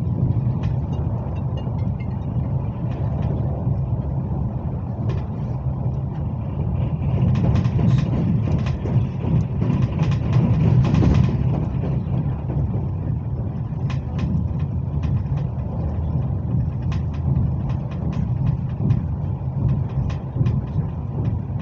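Inside a Hyundai Rotem HRCS2 electric multiple-unit train running at speed: a steady low rumble with short clicks now and then, swelling louder and hissier for a few seconds near the middle.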